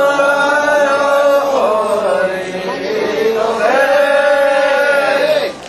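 Men's voices chanting a Japanese festival call together, in long drawn-out held phrases with a dip in pitch midway, breaking off just before the end.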